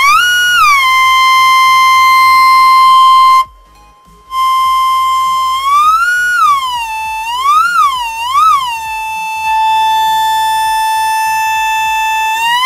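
A single buzzy electronic tone playing a simple melody through the small speaker of a home-built LM386 amplifier, holding notes and gliding smoothly up and down between them. The sound cuts out for under a second a few seconds in, then carries on.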